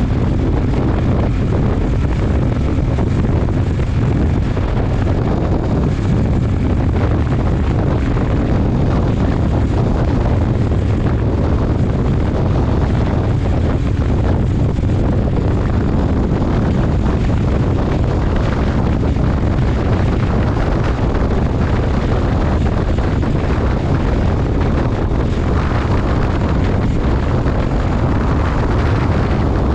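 Steady rush of wind buffeting an action-camera microphone on a moving motorcycle at highway speed, with the bike's running and road noise mixed into it.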